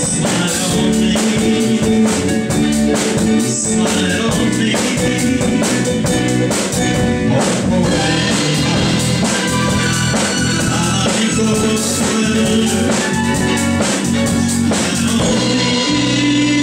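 A rock band playing live: drum kit, electric bass and keyboard together with electric guitar, the drums keeping a steady beat.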